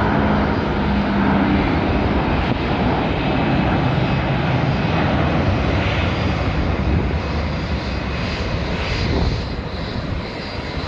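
Jet roar of a Boeing 777-200ER's twin Rolls-Royce Trent 800 engines at takeoff thrust as the airliner lifts off and climbs away. The steady roar eases a little near the end as the jet moves off.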